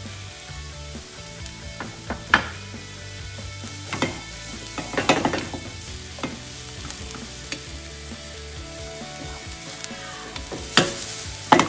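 Chopped onion, garlic and ginger sizzling in oil in a non-stick frying pan, stirred with a wooden spatula that scrapes and knocks against the pan several times, loudest about two seconds in, around five seconds in, and near the end.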